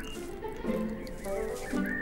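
Background music of slow, held notes that step from one pitch to the next.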